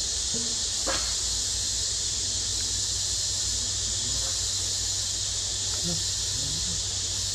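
Steady high insect drone in the forest, with a low hum beneath it and a few faint, brief voices now and then.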